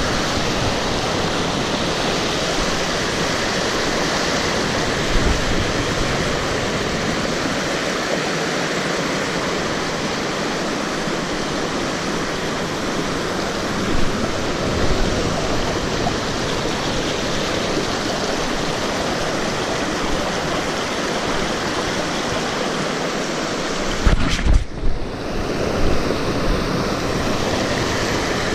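Steady rushing water, with a few brief low bumps.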